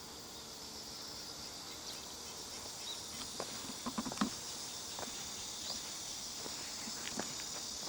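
Insects chirring steadily in a high band, with a few irregular footsteps on the ground from about three seconds in.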